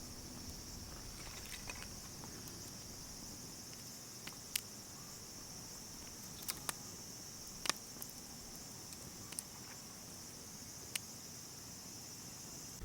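Steady high-pitched trilling of crickets, with a few sharp isolated pops and clicks from a wood campfire crackling.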